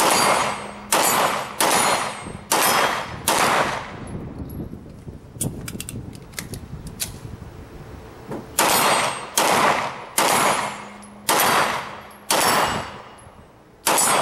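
CZ Shadow 2 9mm pistol firing two strings of five shots at about one shot a second, with a few light clicks in the pause between them as it is reloaded. A single shot near the end starts the next string.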